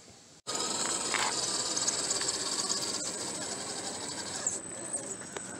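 Electric RC rock crawler's motor and gear drivetrain running: a steady mechanical whir with a thin high whine. It cuts in suddenly about half a second in.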